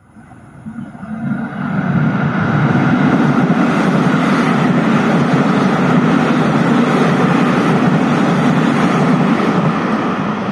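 Electric commuter train (EMU) rushing past. The noise builds quickly over the first two seconds as it approaches, then holds as a loud, steady rumble and rush while it passes, starting to fade near the end.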